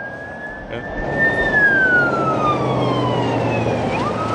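Wailing siren of a police car passing on the highway: the tone holds, slides slowly down in pitch, then sweeps back up near the end, over the rush of passing traffic.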